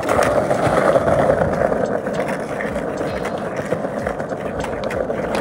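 Skateboard wheels rolling over stone paving tiles during a freestyle walking trick. The rolling noise is steady and slightly louder about a second in, with light clicks scattered through it.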